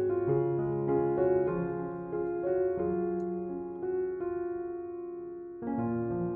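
Background music: a piano playing a slow melody, softening about four seconds in before a new phrase starts near the end.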